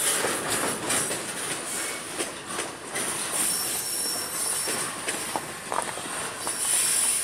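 Freight train of tank cars rolling past and away: steel wheels squeal high on the rails, with scattered clicks and knocks from wheels and couplers under the rolling rumble. The squeal is brightest about a second in and again near the end.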